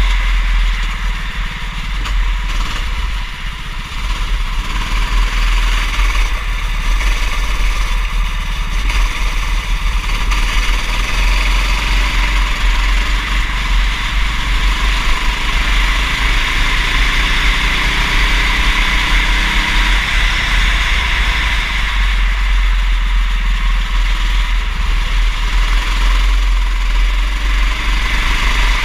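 Go-kart engine running at racing speed, its pitch rising and falling with the throttle through the corners, under a steady rushing hiss.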